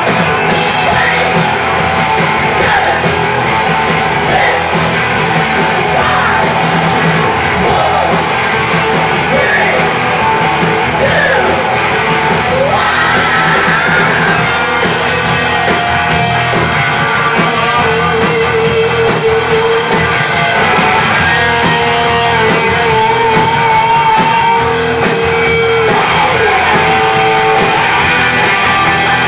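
Live hard rock band playing loud and steady: distorted electric guitars and bass over drums, with shouted vocals, heard in a large room.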